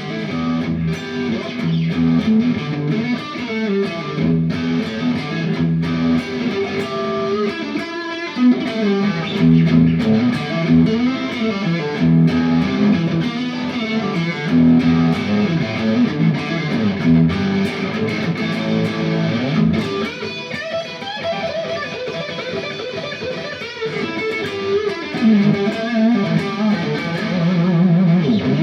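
Electric guitar played through the Little Jim distortion pedal, three BS170 MOSFET gain stages cascaded to give a bright, aggressive crunch like a cranked Marshall amp. It is a Fender Stratocaster Deluxe on its neck pickup, playing continuous distorted chords and riffs.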